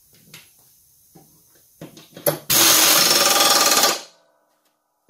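Pneumatic impact wrench (air gun) hammering for about a second and a half as it runs down and tightens a mower blade bolt, after a few light clicks of handling.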